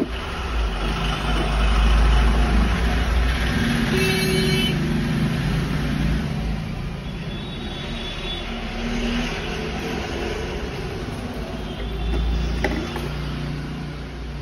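Low rumble of passing motor traffic that swells and fades, with a brief pitched toot about four seconds in.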